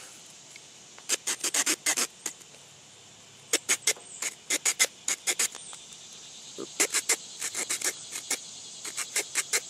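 Leatherman Surge multi-tool saw blade sawing through a stick: quick rasping strokes in four runs of several strokes each, with short pauses between runs.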